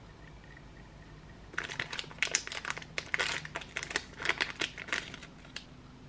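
Plastic crinkling and clicking as a COVID rapid test swab is handled and stirred in its plastic extraction tube. It comes in a quick irregular run starting about a second and a half in and stops shortly before the end.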